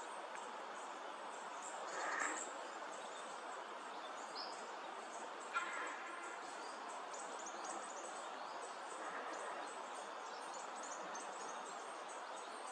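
Quiet outdoor bush ambience: a steady hiss with faint, high chirping scattered through it. Two brief, sharper sounds stand out, about two seconds in and about five and a half seconds in.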